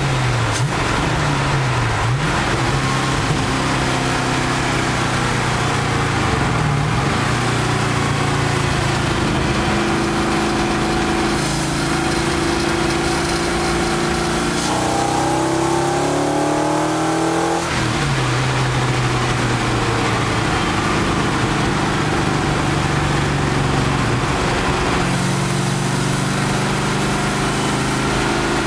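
Car engine heard from inside the cabin, its pitch rising and falling as the car accelerates and slows through the corners. Just past halfway the pitch climbs steadily for a few seconds, then drops sharply at a gear change.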